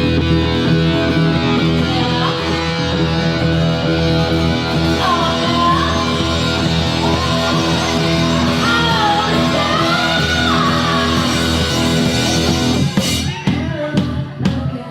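Rock music: sustained distorted chords with a voice singing and yelling over them in the middle, and drum hits starting near the end.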